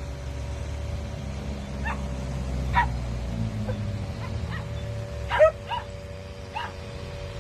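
A dog barking and yipping in short, high calls, about seven of them spread unevenly, the loudest a little past the middle, over a low steady rumble.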